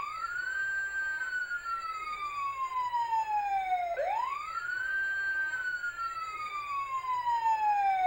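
Emergency-vehicle siren sound effect wailing: two wails, each rising quickly and then falling slowly over about four seconds.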